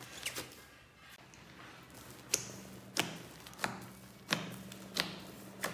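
Slime mixed with soft clay being kneaded and pressed by hand, giving sharp sticky pops: a couple near the start, then a regular run about every two-thirds of a second from about two seconds in.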